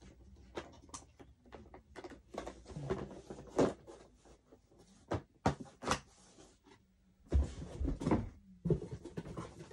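Unboxing sounds: things being handled, with a run of irregular clicks and knocks and some rustling, and a couple of heavier thumps about seven to eight seconds in.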